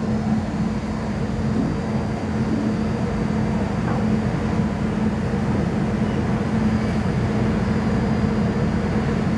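Steady low rumble with a constant hum: the machinery noise heard inside a cruise ship.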